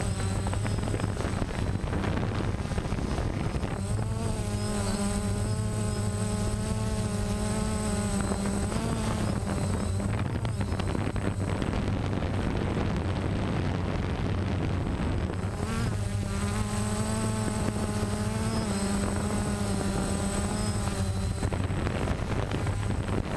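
DJI Phantom quadcopter's electric motors and propellers buzzing in flight, heard from the camera mounted on it. The pitch of the buzz wavers and shifts, and a thin, steady high whine runs underneath.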